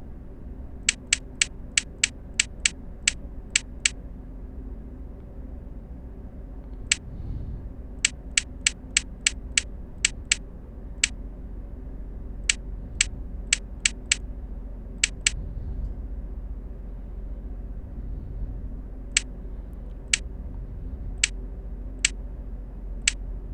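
Short, sharp clicks, in quick runs of several at a time with pauses between, as numbers are marked on keno cards, over a steady low hum.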